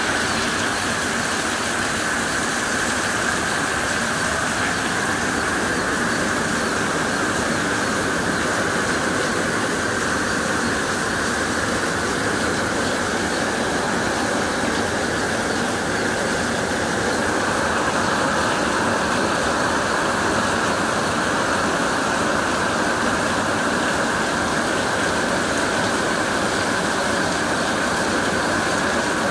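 Heavy rain pouring down in a steady, loud downpour.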